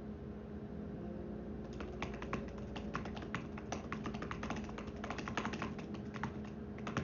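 Fast typing on an Apple Magic Keyboard for iPad, its keys clicking rapidly in quick runs, starting a little under two seconds in.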